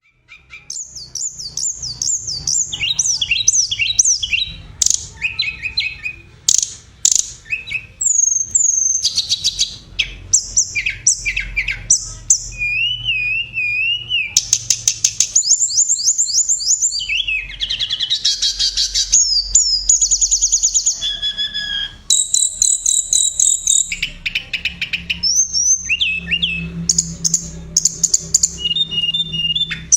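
Tledekan gunung songbird singing a loud, near-continuous high-pitched song of fast trills, rapid repeated notes and wavering whistles in ever-changing phrases, over a faint low hum.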